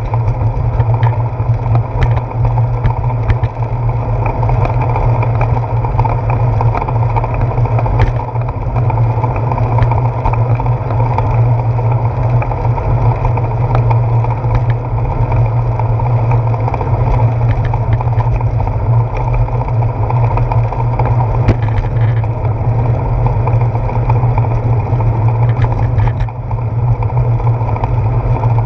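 Steady wind rush and road rumble picked up by a handlebar-mounted GoPro Hero 4 on a moving bicycle, with a few sharp clicks and knocks from bumps jolting the handlebars.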